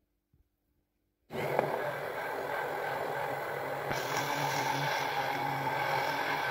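Hand-held immersion blender motor whirring in a glass jar, blending oil into a milk-and-egg base to emulsify mayonnaise. It is silent for about the first second, then starts and runs steadily, turning a little hissier about four seconds in.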